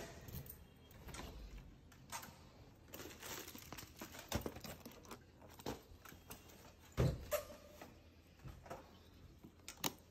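Keys with plush keychains rattling in a door lever lock as it is unlocked and the door opened, followed by scattered knocks and rustles of handling. A dull thump about seven seconds in is the loudest sound, and a wall light switch clicks near the end.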